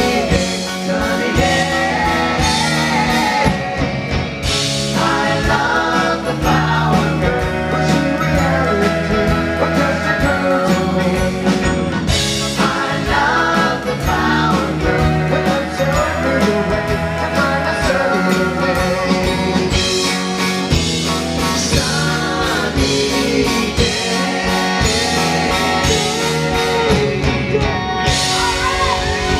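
Live pop-rock band playing with sung vocal harmonies over acoustic and electric guitars, bass, keyboard and drums.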